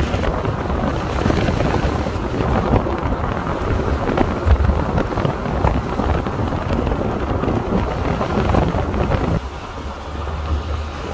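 Wind buffeting the microphone over the low rumble of a car driving on a wet road. About nine seconds in the wind noise drops away, leaving a steadier low road hum.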